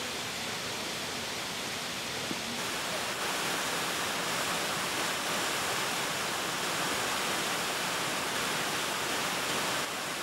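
Steady rush of water falling down a rock face from a waterfall, growing a little louder and brighter about two and a half seconds in.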